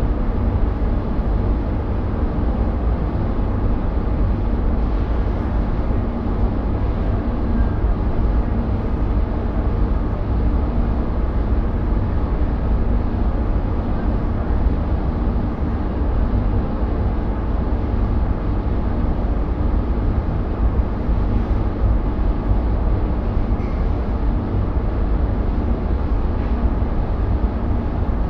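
Powder-coating spray booth running: its air extraction and the powder spray gun's air make a steady low rumble that does not change.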